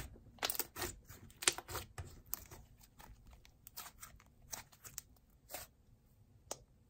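Soft, puffy wood-glue clay slime being squished and pulled apart by hand, giving faint, irregular crackles and small pops that come thick in the first couple of seconds and thin out after.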